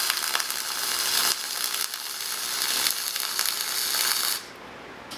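MIG welding arc from a Millermatic 251 running .045 flux-core wire with shielding gas, a steady loud crackle and sizzle of a test bead on scrap steel. The arc stops suddenly about four seconds in as the trigger is released.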